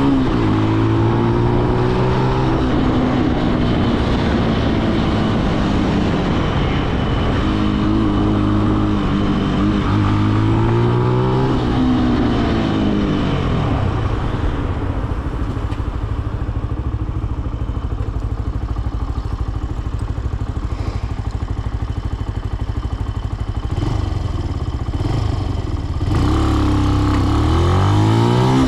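Benelli BN125's single-cylinder 125cc four-stroke engine running under way in traffic, its pitch rising and falling as it speeds up and slows. It settles to a low rumble for about twelve seconds midway, then revs up again near the end.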